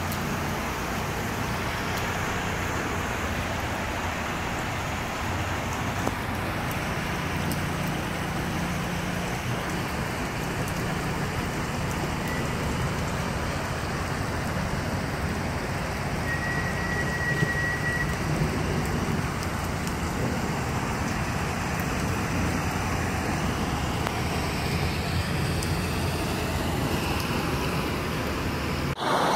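Heavy rain pouring steadily onto flood water, with a low steady hum underneath.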